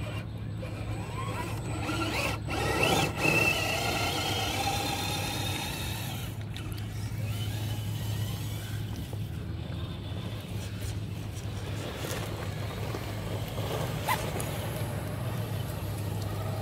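Electric motor and gears of a scale RC rock crawler whining as it drives through sand, the pitch rising and falling with the throttle and loudest a few seconds in. A steady low hum runs underneath.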